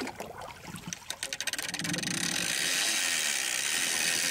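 Big-game fishing reel paying out line against its drag as a hooked shark runs: quick clicks that speed up and merge into a steady high buzz about two seconds in.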